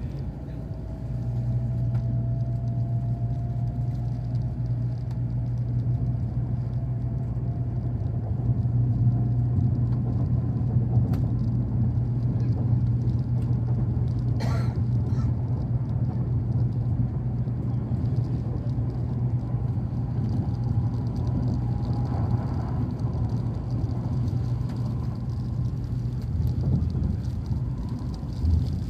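Steady low rumble and hum inside a moving Shinkansen train car, with a faint slowly rising whine in the first few seconds and a single click about halfway through.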